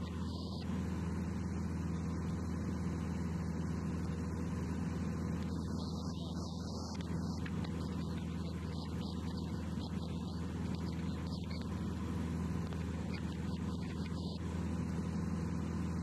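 Light aircraft's piston engine and propeller droning steadily in flight.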